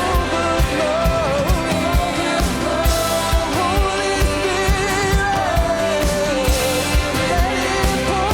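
Contemporary worship band playing live: a sung melody over a full band, with a steady kick-drum beat about twice a second.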